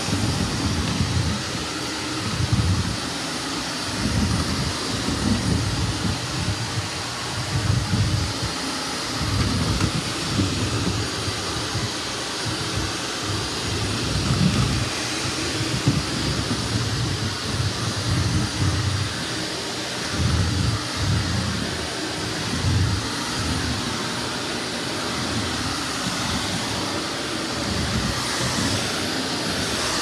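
Shark Navigator Lift-Away Professional upright vacuum cleaner running steadily while pushed back and forth over a bare hardwood floor, with an uneven low rumble that swells and fades as it moves.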